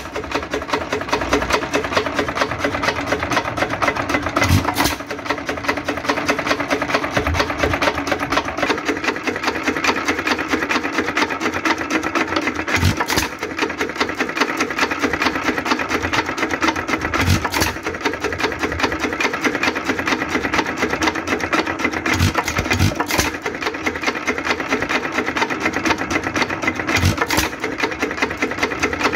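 Associated Chore Boy hit-and-miss engine running: a fast, steady clatter of crank and valve gear as it coasts, broken about six times by a sharper bang a few seconds apart as it fires.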